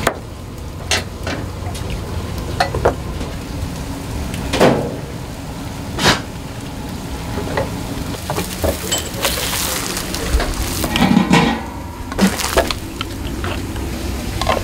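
Working restaurant kitchen: scattered sharp knocks and clinks of knives, bowls and utensils on wooden counters, over a steady background sizzle and hum.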